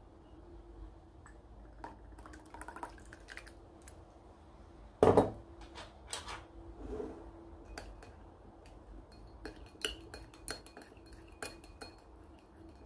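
Small metal spoon clinking against a small glass bowl as a dressing is stirred, with sharp clinks bunched near the end. One much louder knock comes about five seconds in.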